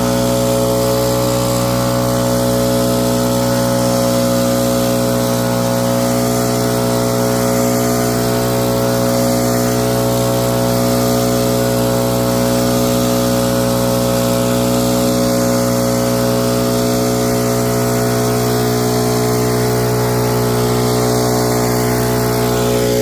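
Engine of a snow-clearing machine running steadily at constant speed, an even, unchanging hum.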